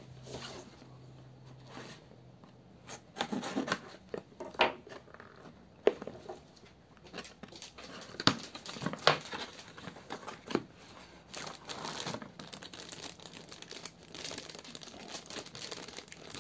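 A cardboard oil-filter carton being handled and cut open with a serrated knife, giving scattered taps and scrapes. Later comes a continuous crinkling of clear plastic packaging being handled.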